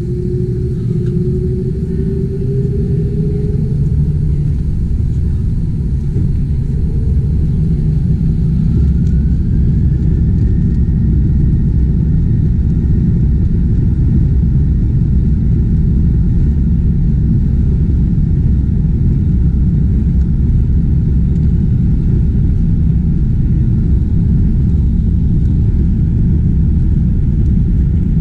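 Airbus A330-200's twin turbofan engines at takeoff power with runway rumble, heard from inside the cabin over the wing. The rumble grows louder over the first several seconds, and an engine whine rises in pitch about ten seconds in, then holds steady.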